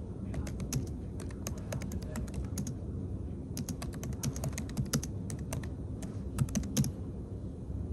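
Keys being typed in irregular quick runs of sharp clicks, over a steady low hum of room noise.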